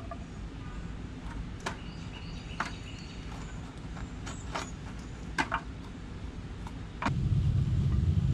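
Light, scattered knocks of a kitchen knife on a plastic cutting board as bell peppers and onion are cut, about one knock a second, over a steady low hum. About seven seconds in, a louder low rumble sets in.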